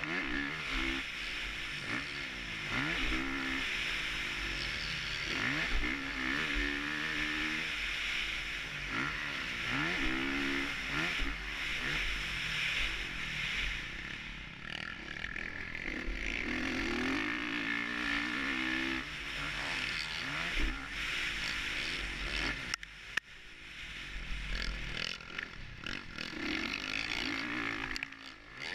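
Honda 450 motocross bike's single-cylinder four-stroke engine revving up and falling back again and again while the bike is ridden around the track, with wind rushing over the helmet camera. The engine note drops away briefly twice in the second half.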